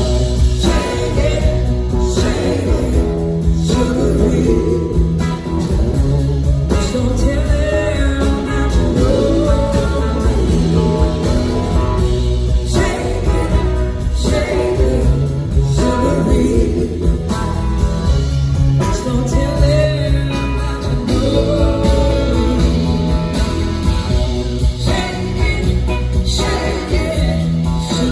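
Live band playing blues-rock on electric guitars, bass guitar, drums and keyboards, with singing over the top.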